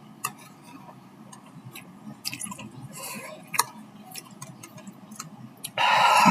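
Chewing a mouthful of spicy instant noodles: scattered wet mouth clicks and smacks. Near the end comes a loud, breathy rush of air lasting just under a second.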